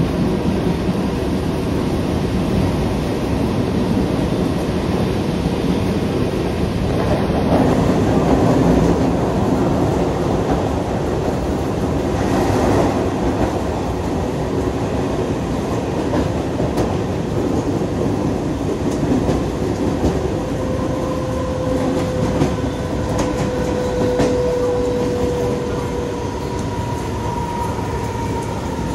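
Suburban electric local train running at speed, heard from its open doorway: a steady rumble with light rail-joint clicks, and a steady whine that comes in about two-thirds of the way through.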